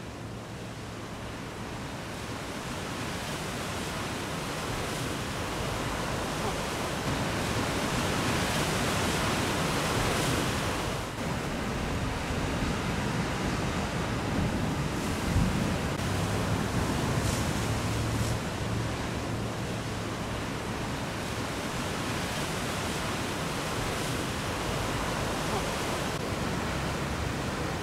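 Ocean surf: waves breaking and washing in, a steady rushing noise that builds gradually over the first several seconds, then holds.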